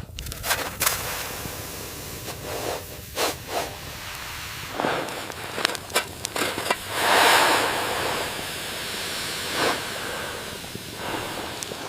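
Close handling sounds of camp gear: scattered clicks, knocks and rustling, then a louder hissing swell about seven seconds in, over a faint steady high tone.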